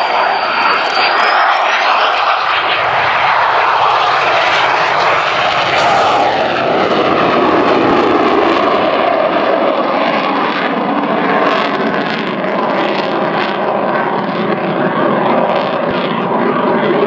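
MiG-29 Fulcrum's twin Klimov RD-33 turbofans running at high power as the jet climbs and manoeuvres: a loud, steady jet noise. A thin high whine rises in pitch over the first couple of seconds.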